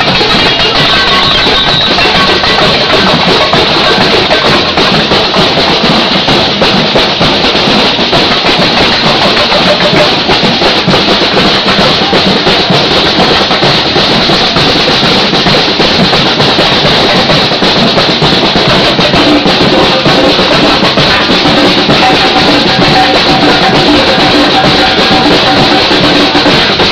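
Batucada percussion band drumming: loud, dense bass drums, snare drums and other percussion playing together without a break. Steady pitched tones of other music show through over the last several seconds.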